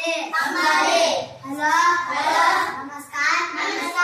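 Young children's voices reciting a lesson aloud in a sing-song chant, in phrases broken by short pauses about a second and a half apart.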